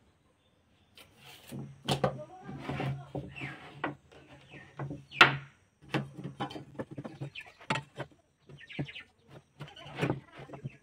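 Timber and hand tools being handled on a wooden bench: scattered knocks and taps of boards, a tape measure and a speed square as lengths are measured and marked. Animal bleating in the background, on and off through the first two thirds and again near the end.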